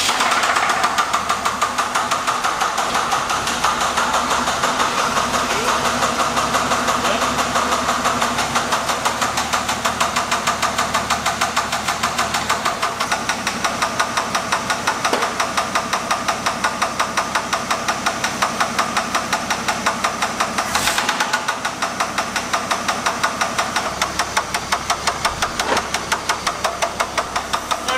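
AMC Eagle engine running just after starting, with a rapid, rhythmic knock from inside the motor. The owner suspects bottom-end (rod) or wrist-pin noise.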